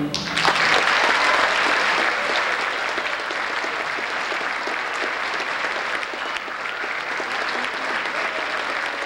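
Concert audience applauding as a string orchestra's last chord ends, the clapping strongest in the first two seconds and then steady.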